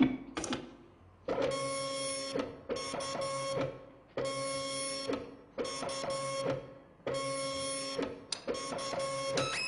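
Dot-matrix printers printing as music, heard as a recording played back over speakers. The print heads make six buzzing passes, each about a second long and held on the same few pitches, with short pauses between passes.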